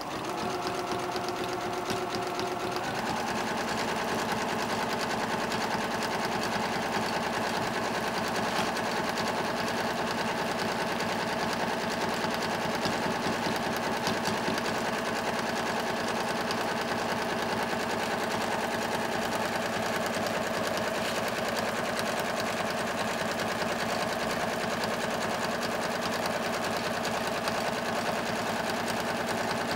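Domestic sewing machine running steadily, sewing a dense zigzag satin stitch (width 3.0, length 0.35) around the edge of a fabric appliqué. It gets a little louder about three seconds in.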